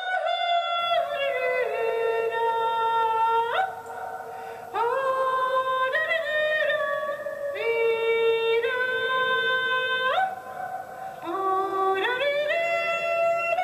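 Slow, wordless music: a melody of long held notes that glide up into each new pitch, in phrases a few seconds long with short breaks between them.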